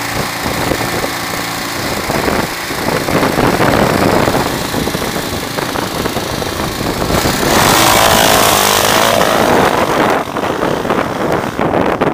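Suzuki DR600's single-cylinder four-stroke engine running, revved harder about two and a half seconds in and again from about seven and a half seconds as the motorcycle pulls away.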